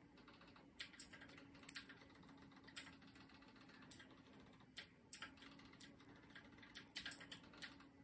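3.5 mm knitting needles clicking and tapping faintly and irregularly, about one or two clicks a second, as stitches are worked in the round, over a low steady hum.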